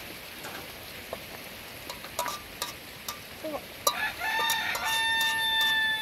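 Rooster crowing once: a long call beginning about four seconds in, rising at the start, holding steady, then falling away. Under it runs a steady background hiss with scattered light taps.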